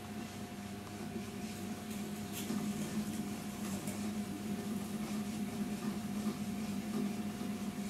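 Potter's wheel motor running with a steady hum while a tall clay cylinder is thrown on it, with a few faint clicks.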